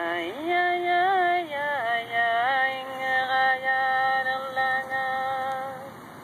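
Singing received on a shortwave radio: a single voice holding long notes and sliding up and down between them, with the narrow, hissy sound of the radio broadcast. The singing stops shortly before the end.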